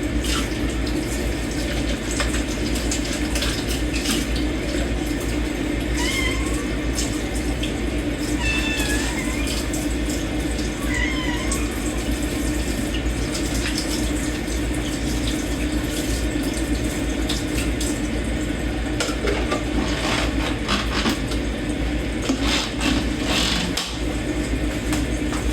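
Tap water running steadily into a kitchen sink during hand dish washing, with dishes and cutlery clinking, more busily near the end. A cat meows a few times around a quarter to halfway through.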